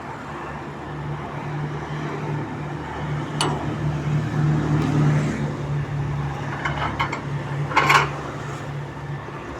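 Sheet-metal forming machine running with a steady low hum, with sharp metallic clanks of the metal sheet about three and a half seconds in and again near eight seconds.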